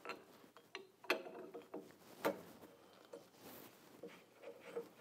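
A wrench clinking against the grinding wheel's arbor nut as the nut is loosened on a blade-sharpener grinder: a few sharp metallic clicks that ring briefly, the loudest about a second in and again just over two seconds in.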